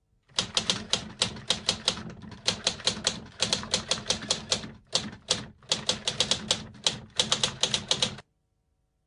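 Typewriter keystrokes clacking in quick runs of about five a second, with short pauses between runs. The sound stops about a second before the end.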